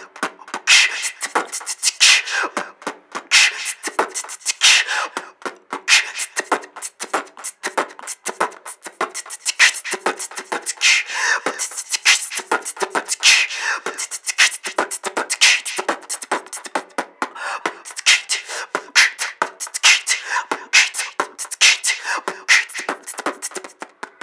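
Solo beatboxing: a fast, rhythmic run of mouth-made kicks, snares and hissing hi-hat sounds, made with the hands cupped around the mouth.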